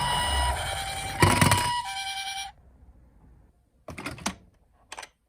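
Toy ambulance minicar's electronic two-tone siren, alternating between two steady pitches, cuts off abruptly about halfway through. A loud clatter comes a little over a second in, and a few short plastic knocks and clicks follow near the end.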